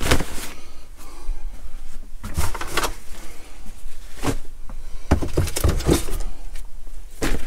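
Handling noise as clothing and hats are packed into a plastic storage box and the lockers are emptied: fabric rustling and a series of short knocks, with a door among the tags.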